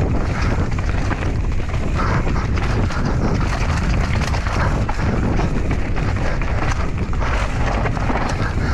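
Enduro mountain bike riding a trail at speed: wind buffets the camera microphone over a heavy rumble of tyres on dirt, with a constant rapid rattle and knocking of the bike over rough ground.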